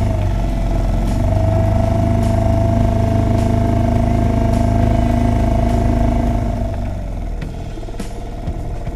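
Small boat outboard motor running steadily under way, easing off about seven seconds in.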